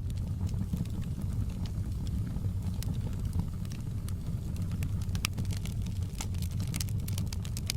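Wood fire crackling: irregular sharp pops and snaps, thicker near the end, over a steady low rumble of the flames.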